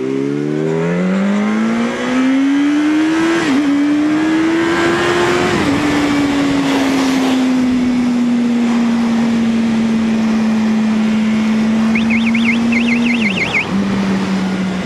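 Yamaha R1's inline-four engine accelerating hard. The revs climb and drop twice a couple of seconds apart as it shifts up, then hold almost steady at cruising speed, and drop once more near the end, with steady wind rush over it.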